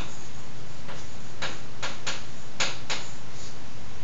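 Chalk tapping and scraping on a blackboard while words are written: a run of about seven short strokes, mostly between one and three and a half seconds in, over a steady low hum.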